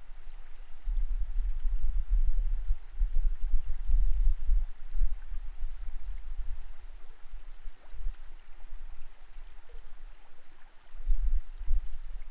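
Creek current heard underwater through a submerged camera: an uneven low rumble with a faint hiss, easing off past the middle and swelling again near the end.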